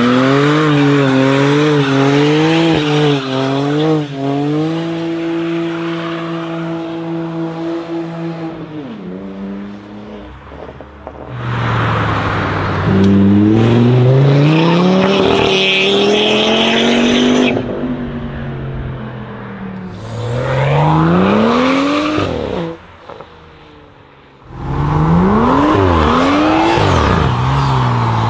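A string of loud car engines, cut one after another. First a BMW 3 Series coupe revs up and down repeatedly, then holds high revs and drops off. Next a low open sports car accelerates past with a rising note and a high whine, and the sequence ends in a BMW hatchback's burnout, its engine revving rapidly up and down over spinning, squealing tyres.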